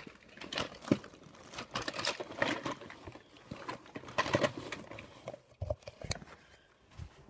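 A bag being rummaged through by hand: irregular rustling and crinkling with small clicks and knocks.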